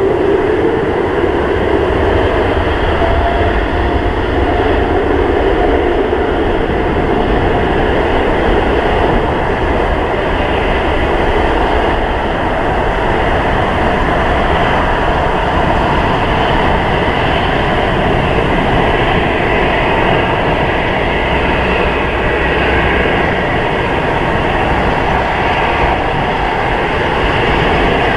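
An Airbus A330-900neo's Rolls-Royce Trent 7000 turbofans at takeoff thrust during the takeoff roll: a loud, steady jet roar. An engine tone rises in pitch over the first few seconds as the engines spool up.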